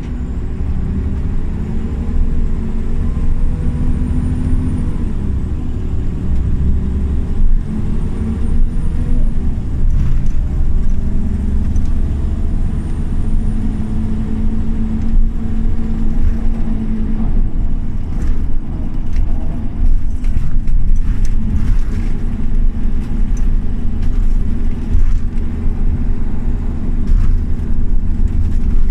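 Scania OmniLink CL94UA city bus's engine and driveline heard from inside the passenger cabin while driving: a heavy low rumble, with the engine note rising twice as the bus accelerates. Knocks and rattles from the cabin come through in the second half.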